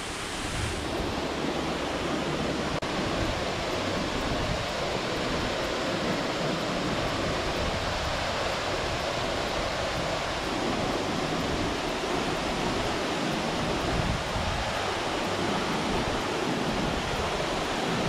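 Steady rush of a tall twin waterfall plunging into its pool, an even unbroken noise with no change in level.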